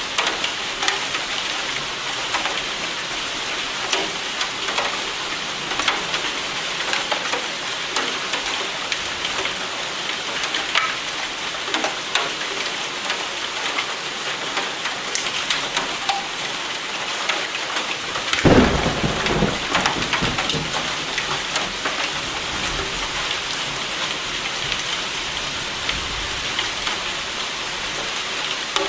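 Steady rain with many individual drops striking. About two-thirds of the way in, a sudden thunderclap is the loudest sound; it rumbles and fades over a couple of seconds.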